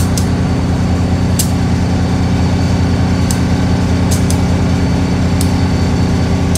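A steady, loud, low mechanical hum of idling railway equipment, with several sharp clicks scattered through it.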